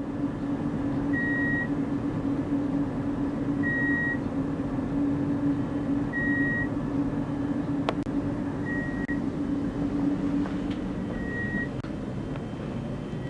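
Inside a standing Alstom Coradia Nordic X62 electric commuter train: the steady hum of the onboard equipment, with a low tone in it that drops away near the end. A short high electronic beep repeats about every two and a half seconds, five times, and there is a single click about eight seconds in.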